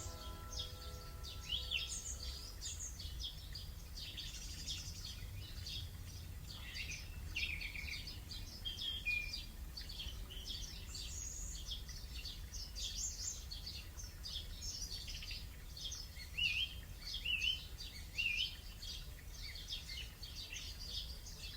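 Recorded dawn chorus of many songbirds chirping and trilling, played back through an Alexa smart speaker as a relaxing morning-sound track, over a steady low hum. A soft sustained tone fades out in the first two seconds.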